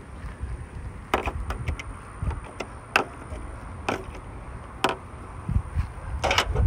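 Irregular sharp plastic clicks and knocks, about a dozen, from a metal tool prying at the plastic latch and trim around a car's headlight housing, with a few quick ones close together near the end. A low rumble sits under them.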